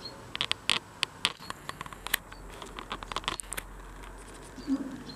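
A fast, irregular run of sharp clicks and scratches, dying away about three-quarters of the way through, with a few faint short high chirps.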